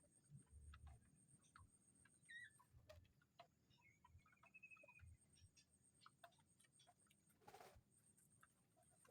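Near silence, with faint scattered ticks and clicks and a brief faint rustle about three-quarters of the way in.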